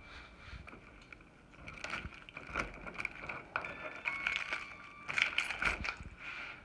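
Irregular metal clicks and rattles from a lever-style door handle's lock as it is worked by hand. The interior lock is faulty and will not catch.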